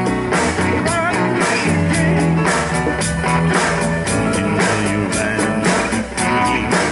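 Live band playing a rock groove: electric guitar over congas and a drum kit.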